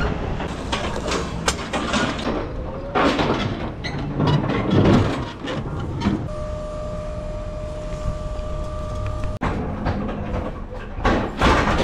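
Metal rattling and clanking over a steady low rumble, with a steady electronic beep lasting about three seconds midway that cuts off suddenly.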